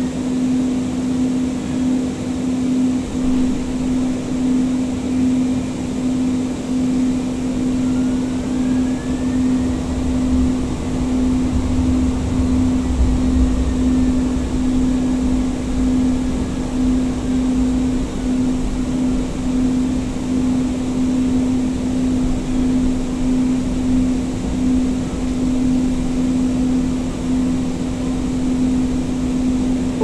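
Inside a Siemens S200 light-rail car in motion: a steady hum over running noise, with a faint whine from the IGBT-VVVF traction drive rising about eight seconds in and falling away later, and a deeper rumble swelling in the middle.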